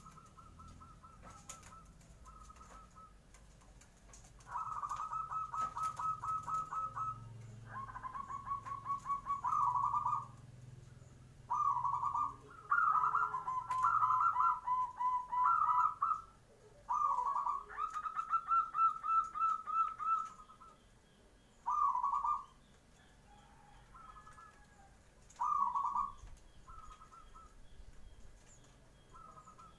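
Zebra doves (perkutut) cooing: repeated calls, each a fast run of short staccato notes, with two birds overlapping at slightly different pitches for a few seconds midway. A few sharp clicks come near the start.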